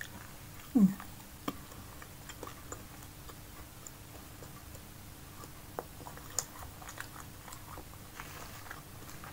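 Close-up chewing of a fried snack: soft mouth clicks and small crunches. About a second in comes a short falling hum of the voice.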